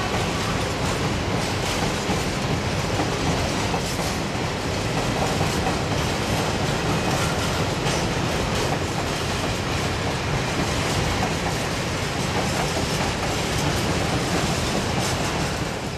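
Freight train of open wagons rolling past behind an ET22 electric locomotive: a steady rolling noise of steel wheels on rail, with the wheels clicking over rail joints.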